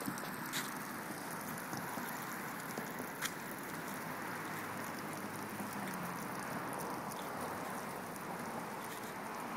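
Splash-pad water spraying from ground jets and a hoop sprayer, a steady hiss of spray falling onto wet concrete. A couple of short sharp ticks stand out, about half a second and about three seconds in.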